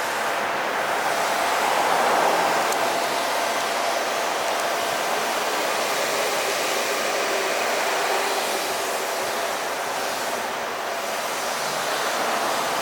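Steady crackling hiss of a stick-welding arc burning a 3.2 mm coated electrode, run off a Pro 200i portable inverter welder.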